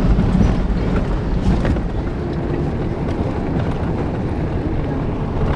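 Off-road SUV driving along a dirt trail, heard from inside the cabin with a window open: steady engine and tyre rumble mixed with wind noise.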